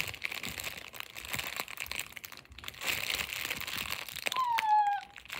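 Plastic candy packet crinkling and crackling in someone's hands as it is worked open. A brief, high, falling squeak comes near the end.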